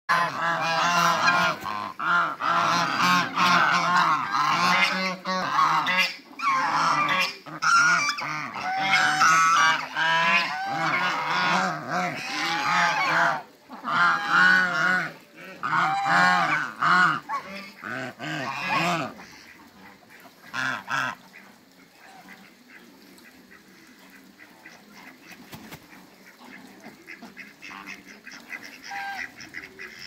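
Flock of domestic geese, African geese among them, honking loudly over one another for about the first twenty seconds; then it falls mostly quiet, with a few single honks near the end.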